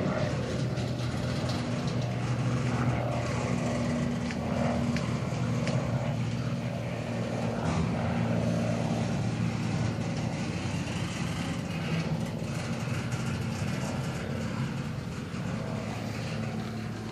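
Norfolk Southern double-stack intermodal freight train giving a steady low drone and rumble, with a few faint clicks and no sudden loud events.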